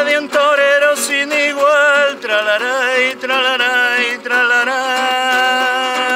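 A man singing a Spanish folk song in long, wavering held notes, accompanied by his own strummed acoustic guitar; one note is held for about two seconds near the end.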